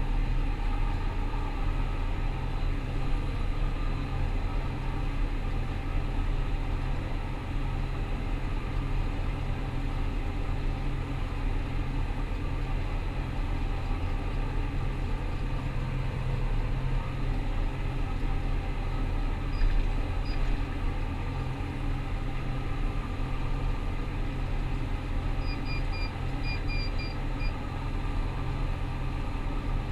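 Rostselmash Vector 425 combine harvester's diesel engine and threshing machinery running steadily under load. A couple of short, high electronic beeps sound about two-thirds of the way in, and a quick run of them follows a little later.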